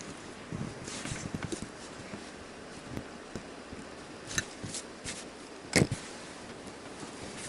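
Small metal knife parts and tools being handled on a work surface during reassembly of a folding knife: scattered light clicks and taps, the loudest a sharp click about three quarters of the way through.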